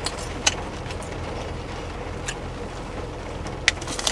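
Steady rain on a parked car's roof and windshield, heard from inside the cabin, with a few sharp crunches of kettle corn being chewed.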